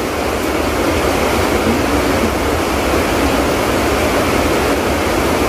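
Heavy tropical rain falling: a loud, steady hiss.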